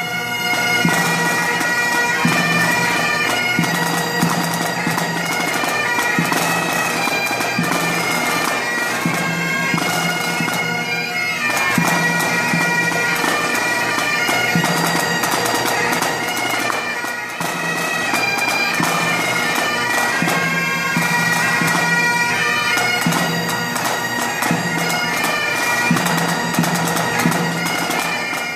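A pipe band's Great Highland bagpipes playing together as a warm-up, the drones sounding steadily beneath the chanters' melody.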